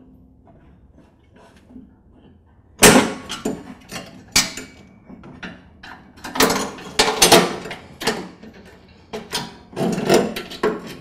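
Sharp metal clanks and rattles of a lawn tractor's steel deck linkage handled by hand as the spring is unhooked. The loudest clank comes about three seconds in, with bunches of rattling clanks later on.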